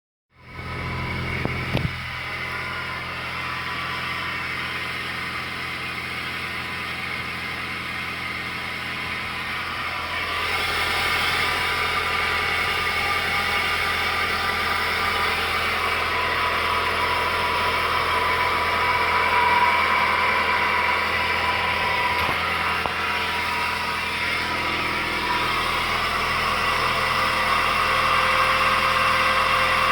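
2004 Suzuki Aerio engine running just after a cold start, with a steady high tone over the engine noise that gets louder about ten seconds in. The weird noise shows when the car first starts up, and its cause is unknown.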